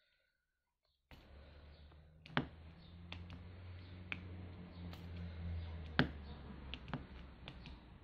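Square diamond-painting drills being tapped onto the adhesive canvas with a drill pen: scattered sharp clicks a second or so apart, the loudest two about 2.4 and 6 seconds in, over a low steady hum that starts about a second in.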